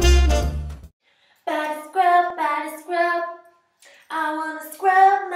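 Jazzy saxophone intro music fades out in the first second; after a short gap a woman sings unaccompanied, a phrase of held notes, a brief pause, then more sung notes.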